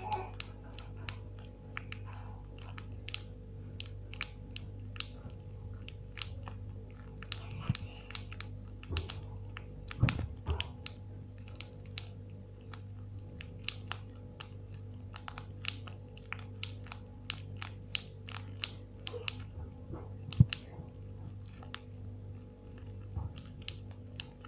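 Pop-It fidget toy's bubbles being pressed one after another, a long run of sharp popping clicks at an uneven pace of a few per second.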